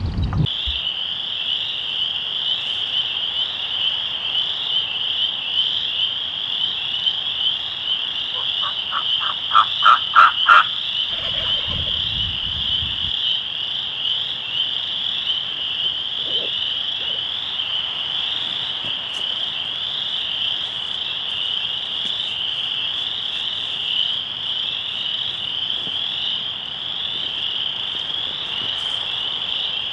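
A chorus of frogs trilling steadily in a continuous high-pitched drone. About nine to ten seconds in, a short series of half a dozen louder evenly spaced calls rings out, followed briefly by a low rumble.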